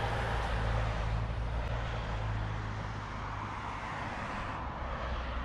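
A road vehicle passing nearby, a steady low rumble that slowly fades away.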